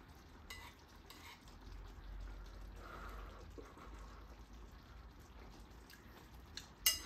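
Faint clinks of metal cutlery against a ceramic bowl as curry rice is scooped up and eaten, with a sharper clink near the end.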